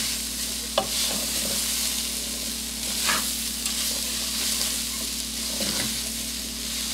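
Textured soy mince and diced potato sizzling in a cooking pot, with a steady hiss. A utensil stirs and knocks against the pot a few times.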